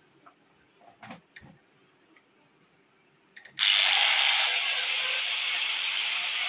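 A MAF Pro 4-inch (100 mm), 1050 W angle grinder is switched on about three and a half seconds in and runs steadily and loudly, held in the hand with no load on it. A few faint handling knocks come before it starts.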